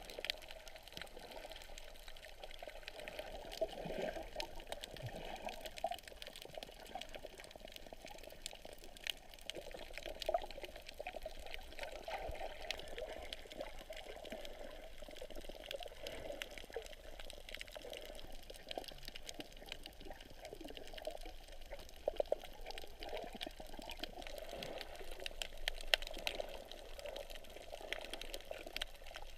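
Sea water heard underwater through a camera's waterproof housing: a steady, muffled rush of moving water with many scattered faint clicks and crackles.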